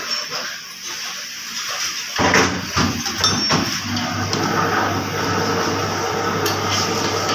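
Metal parts knocking and clinking a few times over a steady low mechanical hum, which starts about two seconds in.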